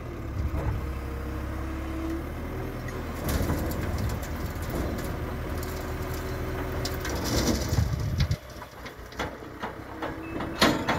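JCB telehandler's diesel engine running under load as the bucket lifts and tips manure into a spreader trailer, with the rushing noise of the load pouring. About eight seconds in the engine sound drops sharply, followed by a few scattered knocks.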